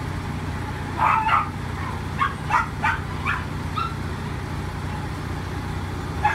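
A dog gives several short, high barks and yips, a cluster about a second in and more between two and four seconds in, over a steady low motor hum.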